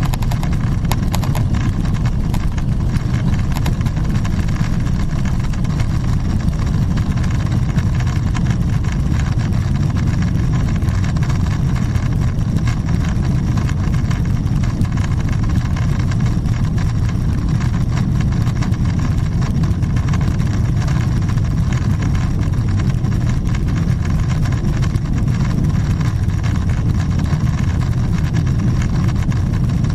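Boeing 777-300ER's GE90-115B engines at takeoff thrust, heard from inside the cabin as a steady, loud low rumble mixed with airflow noise through liftoff and the initial climb. A few faint knocks come in the first second or two, while the wheels are still on the runway.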